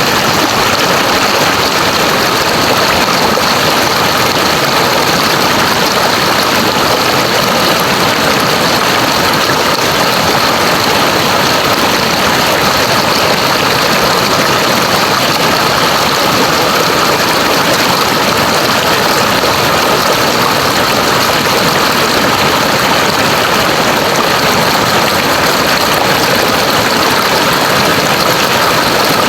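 River water rushing steadily, a loud, even hiss that never lets up.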